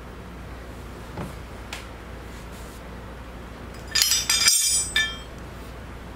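Metal hand tools and steel parts clinking and ringing against each other on a workbench: two faint taps, then a quick cluster of sharp clinks about four seconds in.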